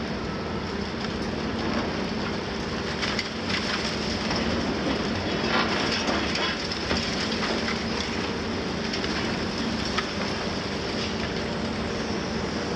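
Large demolition excavators' diesel engines running steadily, mixed with the crunching and clattering of concrete and masonry being torn from a building, with scattered sharp cracks.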